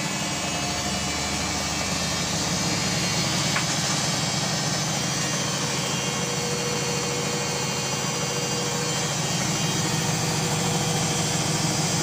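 Samsung WF6520N7W front-loading washing machine spinning: a loud, steady running noise from the drum and motor, a faint whine joining about halfway and the noise rising slightly near the end.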